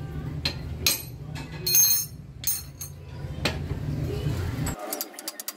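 Metal tools and rusty bicycle parts clinking and knocking as a bicycle is taken apart: several separate sharp clinks, the loudest about two seconds in, then a quick run of light clicks near the end.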